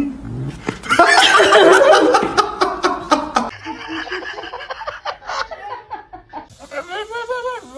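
People laughing loudly for a couple of seconds, starting about a second in; near the end, a short call that rises and falls in pitch.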